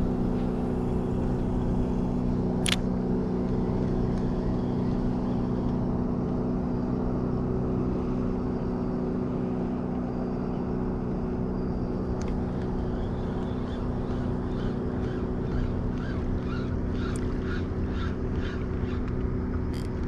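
Boat engine running at a steady speed: a constant low hum.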